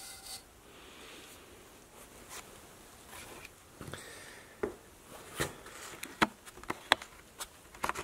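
Faint handling noise: rustling with scattered light knocks and clicks, a little sharper and more frequent in the second half.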